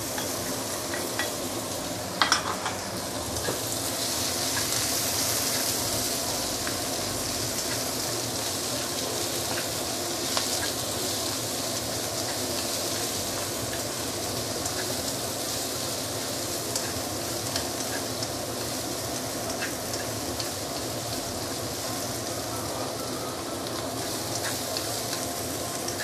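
Shredded cabbage and carrot sizzling in hot oil in a non-stick wok while being stirred and tossed with wooden chopsticks. A sharp knock comes about two seconds in; from about three seconds the sizzle grows louder and then holds steady, with small ticks of the chopsticks and a faint steady low hum underneath.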